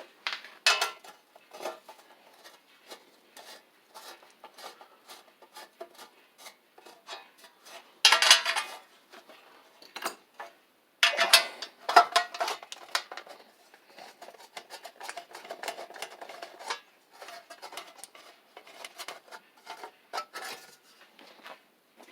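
Metal clinking and clattering of hand tools and parts being handled during the teardown of a Briggs & Stratton WMB small engine, with louder rattling about eight seconds in and again around eleven to thirteen seconds.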